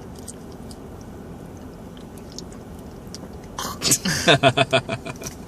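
Faint crunching as a roasted mealworm larva is chewed, with small clicks, then a short burst of loud laughter about three and a half seconds in.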